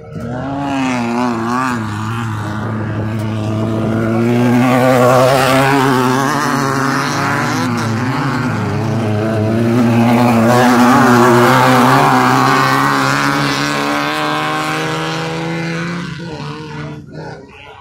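Two Class 9 off-road race cars passing on a dirt track, their engines revving and wavering in pitch. The engine sound swells to two peaks, about five and eleven seconds in, and fades near the end.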